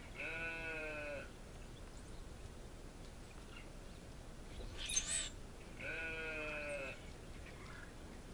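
Sheep bleating: two quavering calls about a second long each, one just after the start and one about six seconds in, with a brief, louder, higher-pitched cry about five seconds in.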